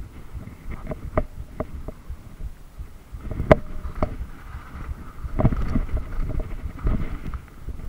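Mountain bike riding down a rough dirt trail: a steady low rumble of tyres and wind, broken by rattling knocks as the bike hits bumps, the heaviest about three and a half seconds in and again between five and a half and seven seconds.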